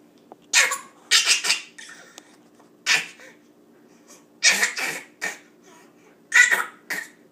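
A pet's short, breathy snorts, about eight of them, several coming in quick runs of two or three, over a faint steady hum.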